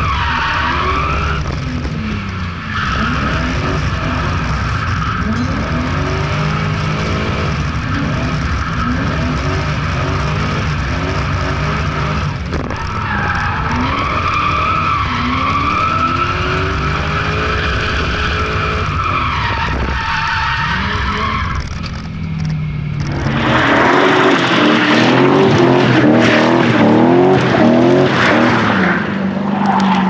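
The swapped-in BMW M60B40 4.0-litre V8 of an E30 Touring revs up and down through its homemade stainless-steel exhaust while the tyres squeal in long drifts, heard from inside the car. About 23 seconds in, the sound changes to the car heard from outside, louder, with the tyres squealing hard over the engine.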